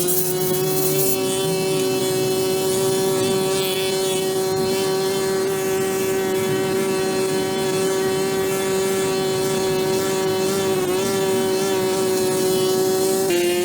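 A small engine or motor running steadily at a constant, high pitch, with a brief wobble in speed near the end.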